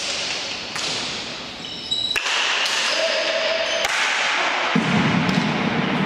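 Pelota ball struck by wooden paleta paddles and slapping off the court walls: several sharp knocks that echo around the reverberant hall, with a few short shoe squeaks on the court floor.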